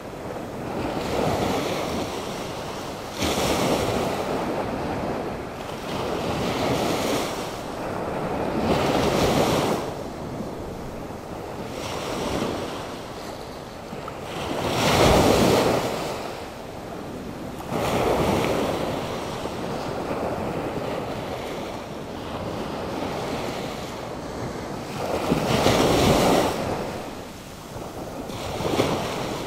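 Rough Atlantic Ocean surf stirred up by a hurricane: waves breaking one after another every few seconds, each swelling and falling away, the loudest crashes about halfway through and again near the end. Wind buffets the microphone throughout.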